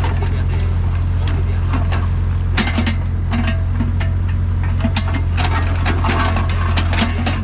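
A Doosan DX55WA wheeled excavator's diesel engine running steadily. Over it come irregular metallic knocks and clatter from the bucket and linkage working the ground.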